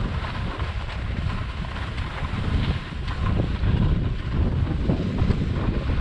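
Wind buffeting the microphone with a low rumble, over the steady hiss and scrape of skis sliding and turning on packed snow.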